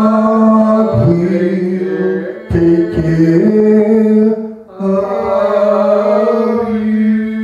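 A man singing solo into a handheld microphone, holding long notes in four phrases with short breaths between them.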